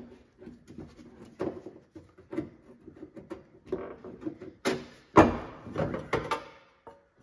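Irregular clicks, scrapes and small knocks of a screwdriver on metal as the hose clamps on a fuel filler inlet hose are worked loose, with one sharper knock about five seconds in.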